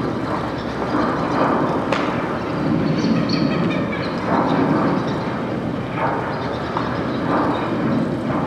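A continuous low rumble that swells and fades every second or so, with a few faint high tones about three seconds in, from the installation's soundtrack.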